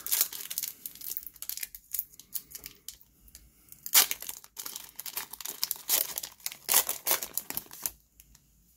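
Foil trading-card pack wrapper crinkling and tearing as it is ripped open by hand, then rustling as the cards are slid out. Irregular crackles, with louder bursts about four seconds in and again around six to seven seconds, stopping shortly before the end.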